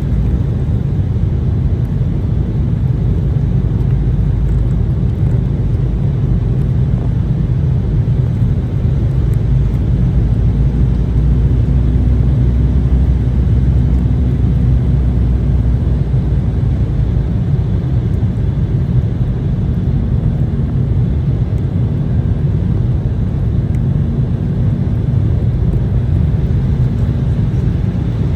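Steady low rumble of jet engines and airflow inside the cabin of an Embraer 190 airliner, with a faint hum that comes and goes.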